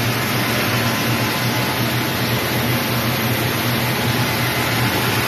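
Compact rice milling machine running steadily while milling rice, a constant mechanical whir with a low hum underneath.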